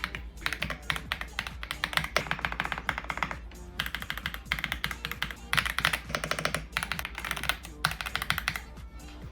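Fast typing on an AULA F75 Max mechanical keyboard: runs of quick, clacky keystrokes with short pauses between them, over background music.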